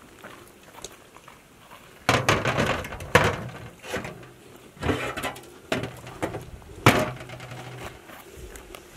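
Rocks being set down on the metal lid of a large cooking pot: about six sharp knocks of stone on metal, starting about two seconds in, weighting the lid down so the steam stays inside.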